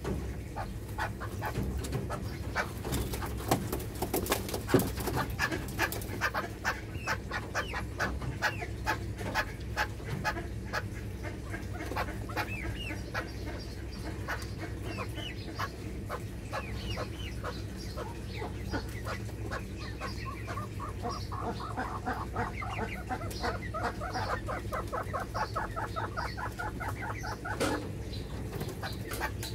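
Penned young partridges and a chicken calling: many short chirps and clucks, with a fast run of repeated calls near the end, over a steady low hum.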